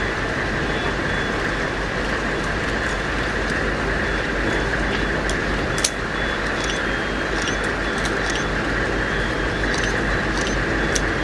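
Steady, loud mechanical running noise, like an engine or heavy machinery, with a few light clicks scattered through it.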